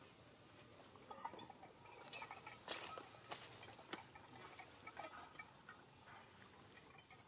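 Faint outdoor ambience: a steady high insect drone, with scattered rustles and clicks and a few faint short squeaks. The loudest rustle comes a little under three seconds in.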